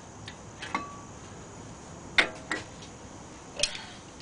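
Light metallic clinks and taps of disc brake pads and tools being handled at the caliper, four or five separate knocks with the loudest about two seconds in.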